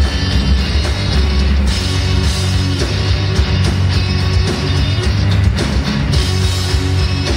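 Live heavy metal played on amplified cellos over a pounding drum kit, loud and dense without a break.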